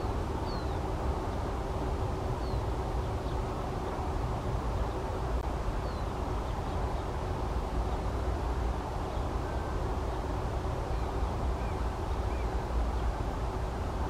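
Steady low outdoor rumble, of the kind distant road traffic makes, with faint short high chirps of small birds every second or two. The cranes do not call.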